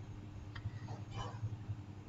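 Quiet room tone with a steady low hum and a couple of faint ticks.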